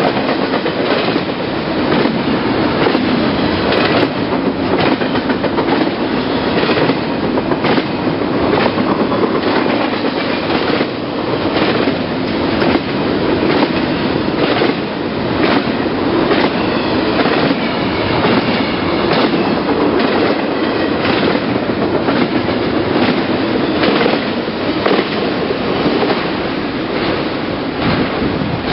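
Double-stack intermodal freight train passing close by: a steady loud rumble of steel wheels on rail, with regular clicks as the wheels cross rail joints.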